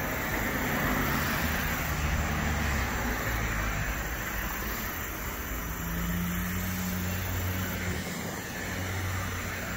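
Road traffic: cars passing, a steady hum of engines and tyres that swells and fades a few times.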